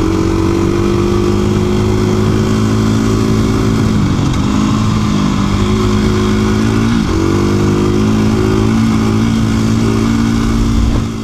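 KTM 350 EXC-F dual-sport motorcycle's single-cylinder four-stroke engine running steadily under way on a dirt trail. Its pitch dips briefly twice, about four and seven seconds in, and picks back up.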